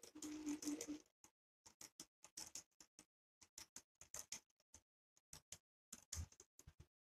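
N-gauge model train running past on its track, giving faint, irregular clicking from its wheels over the rails and joints, with a short denser stretch and a faint hum in the first second.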